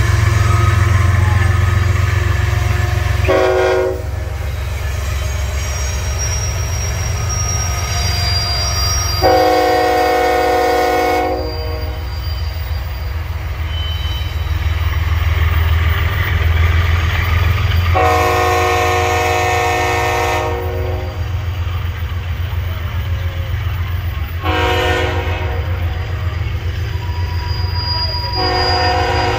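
BNSF diesel locomotive sounding its air horn in separate blasts over the steady rumble of the engine and the rolling hopper cars. After a short toot, the horn gives two long blasts, a short one and another long one, the long-long-short-long pattern of the grade-crossing warning.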